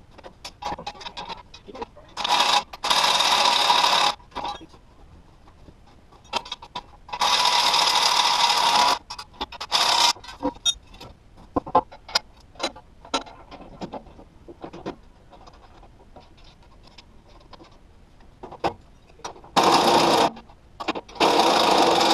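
Cordless drill running in several bursts of one to two seconds each, driving bolts during mower assembly. Between the bursts come scattered clinks and knocks of metal parts and tools being handled.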